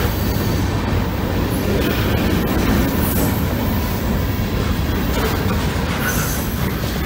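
Freight train boxcars and gondola cars rolling past close at hand: a steady rumble of steel wheels on the rails.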